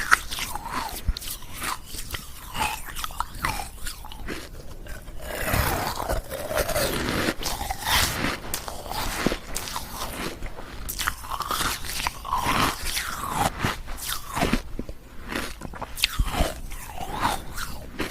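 Ice cubes being bitten and chewed close to the microphone: dense, irregular crunching and cracking that goes on throughout.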